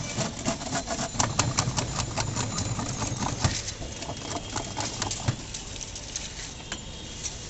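A wooden stick stirring juice in a stainless steel mug, clicking and clinking rapidly against the metal sides. The clicking thins out after about five seconds.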